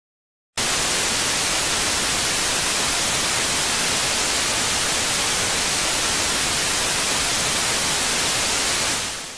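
Analog television static hiss: a steady white noise that cuts in abruptly about half a second in and fades out near the end.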